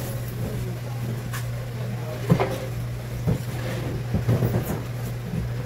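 A few sharp knocks and clatters of objects being handled, the loudest about two seconds in and a quick run of them around four seconds in, over a steady low machine hum.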